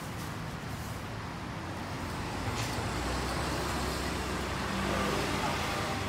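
Road traffic noise: a steady rumble of passing vehicles that grows a little louder about halfway through, with a brief click just before.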